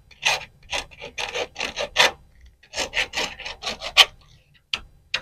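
Small file rasping in short strokes across the flared end of a copper refrigerant pipe, smoothing the flare's edge so it will seal without leaking. Two runs of about five or six strokes, roughly three a second, with a short pause between them and two single strokes near the end.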